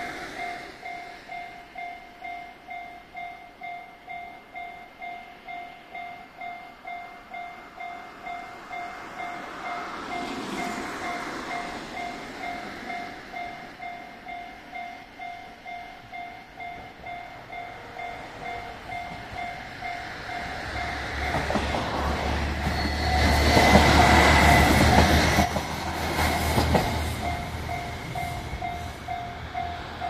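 Railway crossing warning bell ringing steadily at about two dings a second as a JR Shikoku 1500 series diesel railcar comes through. The train's engine and wheels on the rails build to a loud rumble about three quarters of the way in, loudest for a couple of seconds, then ease off while the bell keeps ringing.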